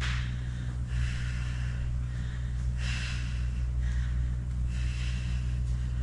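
A person breathing in and out through the exertion of exercise reps, an airy breath sound about once a second, over a steady low hum.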